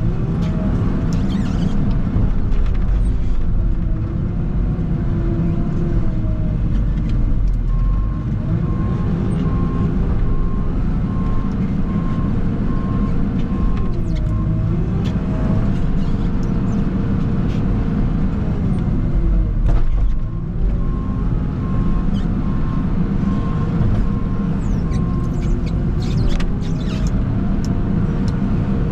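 Heavy machinery engine working through repeated snow-clearing passes, its pitch sagging under load and picking back up about every six seconds. A reversing alarm beeps steadily twice: from about 8 to 14 seconds in, and again from about 21 to 25 seconds.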